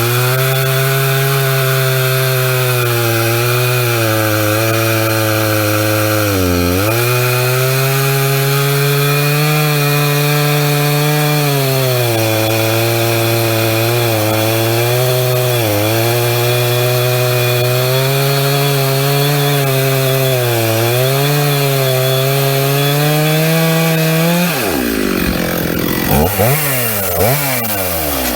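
Stihl chainsaw cutting into a large burl at high revs under load, its pitch sagging and recovering as the chain bites, with a sharp dip about six and a half seconds in. About 24 seconds in the throttle is let off, and the engine drops and revs back up a few times.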